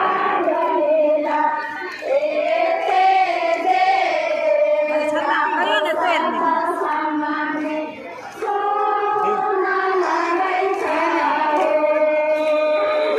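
A crowd of women singing together in a slow, drawn-out chant, many voices holding long notes, with a short break about eight seconds in.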